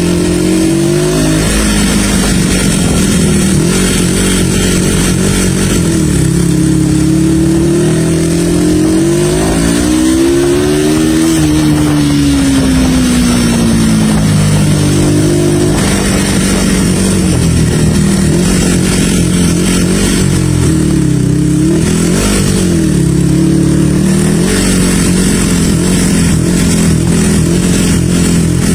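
1976 Yamaha XS360's parallel-twin engine running on the road: the pitch climbs as it revs up from about eight to eleven seconds in, then falls away, with several shorter rises and dips later. A steady low rush of wind and road noise runs underneath.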